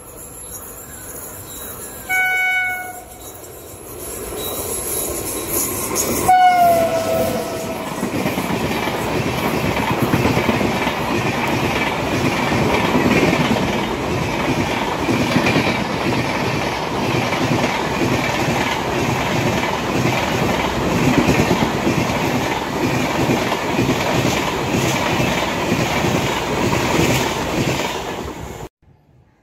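Electric locomotive of a high-speed passenger train sounding its horn twice while approaching, the second blast dropping in pitch as it passes. Then a long rake of passenger coaches rushes by at speed with a steady rumble and rail clatter that stops abruptly near the end.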